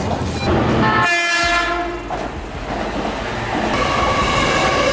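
Commuter electric train sounding a short horn blast about a second in, then running along the rails, with a steady whine setting in near the end.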